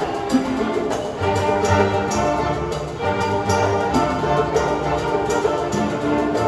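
Live chamber orchestra playing: a solo violin with the string section, and cellos and double bass coming in on low held notes about a second in.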